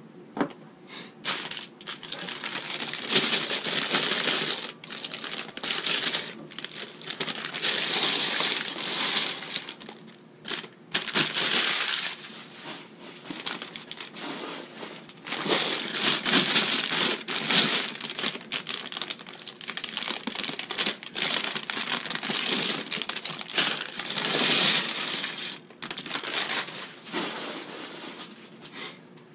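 Plastic LEGO parts bag crinkling as it is handled and emptied, with small plastic bricks and plates clicking and clattering onto a wooden tabletop, in bouts with short pauses between.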